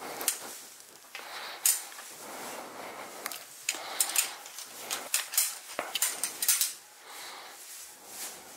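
Handling noise from a hand-held camera: irregular small clicks, taps and rustles, several close together around the middle.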